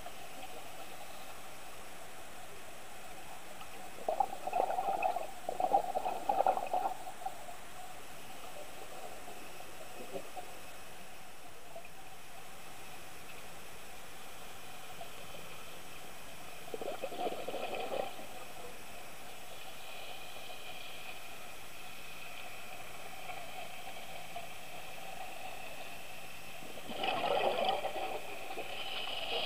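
Scuba diver's exhaled bubbles gurgling from the regulator underwater, in three bursts roughly ten seconds apart, over a steady underwater hiss.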